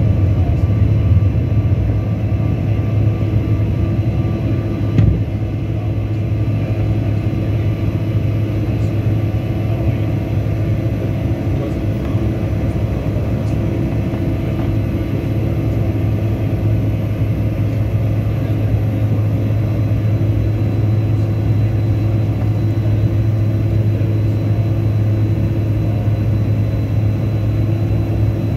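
Cabin noise of a Bombardier CRJ-900 in its climb after takeoff: a steady drone from its two rear-mounted General Electric CF34 turbofans and the rushing air, heard from inside the cabin. A single brief knock comes about five seconds in.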